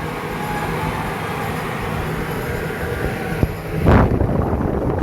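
Crompton Ventilus 200 mm exhaust fan running on a test run: a steady rush of air with a low motor hum. A brief, louder burst of noise comes about four seconds in.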